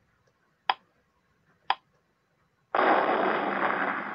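Countdown-timer sound effect: two sharp clock ticks one second apart, then, about three seconds in, a loud rushing noise that lasts about two seconds, the time-up sound.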